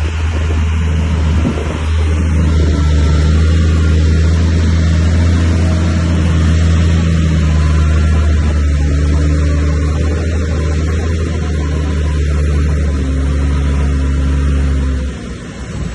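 Bulldozer's diesel engine running steadily with a loud, deep drone, which drops off near the end.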